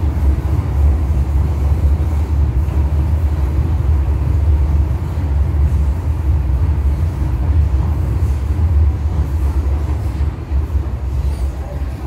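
MTR M-Train electric multiple unit heard from inside a passenger car running at speed: a steady low rumble of wheels on track and running gear. The rumble eases off a little near the end as the train comes out of a tunnel into the open.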